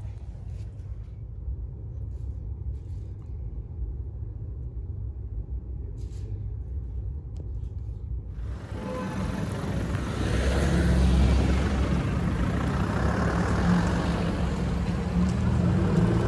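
A low steady rumble, then about eight seconds in a sudden switch to loud street noise. An orange Lamborghini Huracán's V10 engine runs as the car drives by, the loudest part of the clip.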